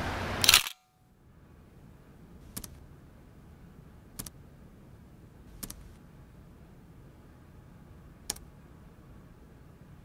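A Nikon DSLR shutter clicks once, sharply, just after the start. Then, over quiet room tone, four soft clicks of a laptop key or trackpad come a second and a half to three seconds apart, one for each new photo brought up on the screen.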